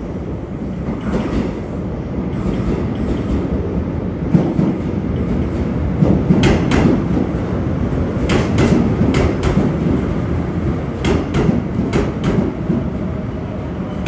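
A Seoul Subway Line 1 electric train's wheels passing over a rail joint: a steady rolling rumble broken by repeated clusters of clacks as each bogie's wheelsets strike the joint gap, the groups coming roughly every one and a half to two seconds.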